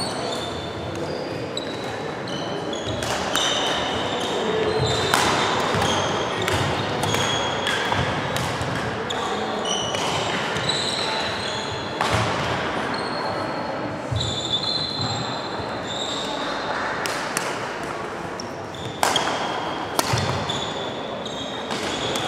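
Badminton hall sound from nearby courts: many short, high-pitched squeaks of sports shoes on the wooden floor, with sharp racket strikes on shuttlecocks, echoing in a large hall.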